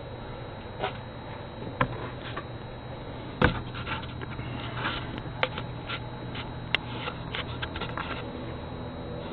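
Sharp clicks and taps of a hand pressing and fumbling at a Ring doorbell camera, heard right at the device: a few single knocks, the loudest about three and a half seconds in, then a flurry of small ticks near the end. Under them runs the camera microphone's steady hiss and low hum.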